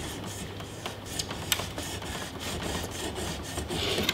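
Heated knife blade cutting into the plastic frame of an LG flat-screen TV: irregular crackling and scraping clicks, several a second, over a low steady hum.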